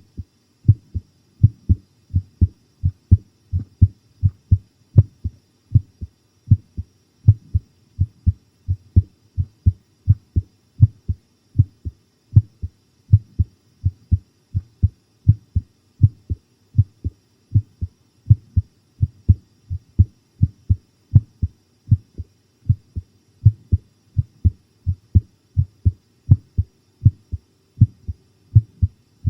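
A human heartbeat recorded close against the chest: steady, even lub-dub thumps, a loud beat followed by a softer one, in a pounding rhythm.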